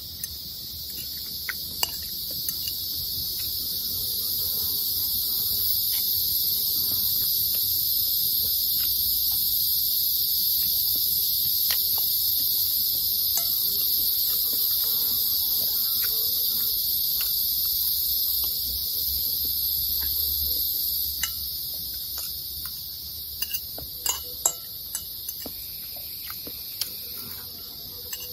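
Steady, high-pitched insect chorus in the forest, swelling louder and then easing off after about twenty seconds. Scattered clicks of cutlery against a plate during a meal, more frequent near the end.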